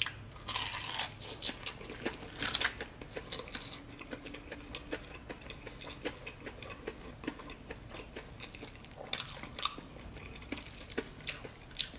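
Close-up eating sounds of a person biting into a crumb-coated baked chicken drumstick and chewing it, with small crackles and mouth clicks throughout. Louder crunchy bites come about half a second in, again near two and a half seconds, and around nine seconds in.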